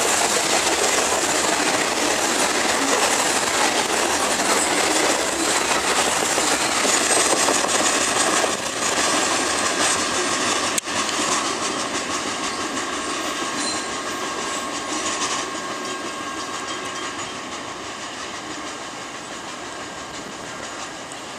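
Covered hopper cars of a CSX grain train rolling past, their wheels running on the rails. There is a sharp click about halfway through, and then the train noise fades steadily as the train moves away.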